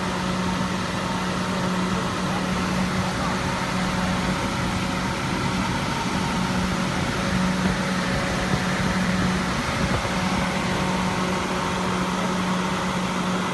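Bird treat stick forming machine running, with a steady motor hum over an even mechanical noise.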